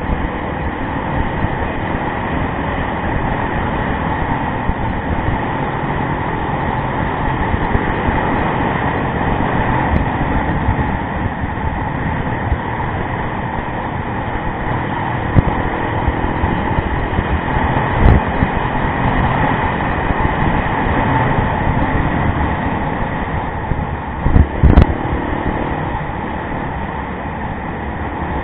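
Yamaha rally motorcycle under way, its engine running steadily under a constant wash of wind and road noise. A few sharp knocks cut through, the loudest about 18 and 25 seconds in.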